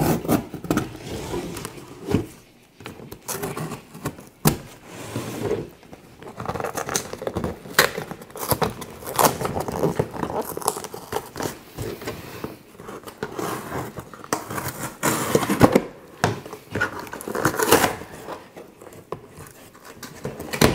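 A large cardboard shipping box being cut open and unpacked by hand: irregular cutting, scraping and crinkling of cardboard and packing material, with frequent sharp clicks.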